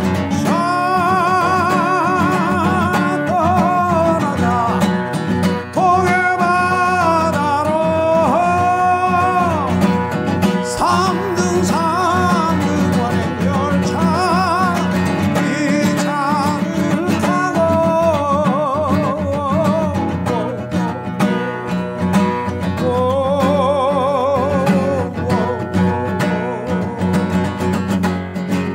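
A man singing a slow Korean song in a vibrato-laden voice, accompanied by a strummed acoustic guitar; the song fades out at the end.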